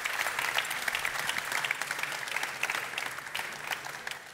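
Audience applauding, with many hands clapping; the applause thins out and dies away near the end.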